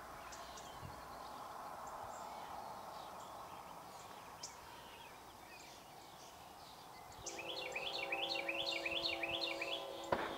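Birds chirping. About seven seconds in, the horn of an approaching freight locomotive starts sounding a steady chord, at the same time as a bird sings a quick run of rising notes. A sharp click comes just before the end.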